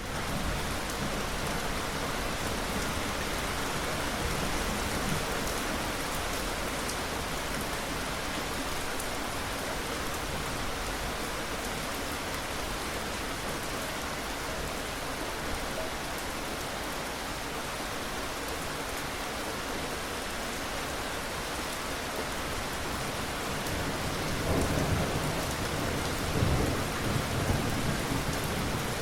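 Steady rain falling in an even hiss. Near the end it is joined by a few low rumbles of thunder.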